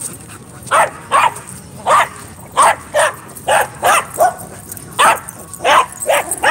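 A dog barking over and over, about a dozen short barks at roughly two a second, some coming in quick pairs.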